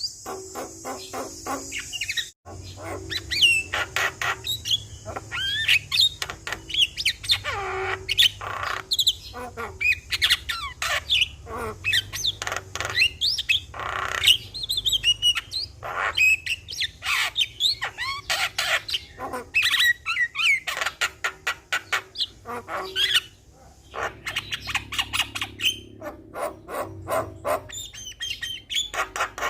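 Javan myna (jalak kebo) singing: a fast, unbroken stream of varied whistles, chatters and harsh squawks with sliding pitch, broken by short gaps about two seconds in and again near the end.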